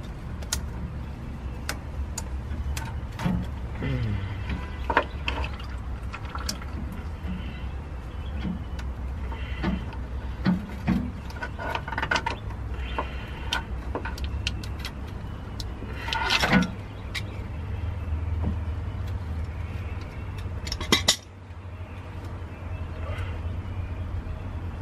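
Pliers working a hose clamp on an old transmission cooler hose, metal clicking and scraping in scattered short bursts over a steady low hum.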